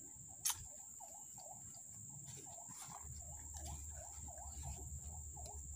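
Forest insects droning steadily at a high pitch, with a lower call repeating about three times a second over it. A single sharp click sounds about half a second in.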